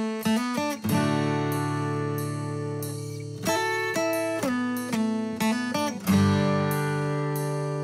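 Background music on acoustic guitar: plucked single notes and strummed chords that ring on, with two long held chords, about a second in and about six seconds in.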